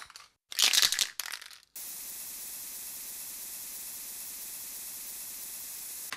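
A few short crackling bursts for about a second, then a steady high-pitched hiss like static until near the end.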